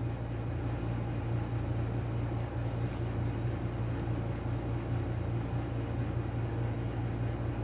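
Steady low hum with a light hiss, a constant room background noise, with one faint tick about three seconds in.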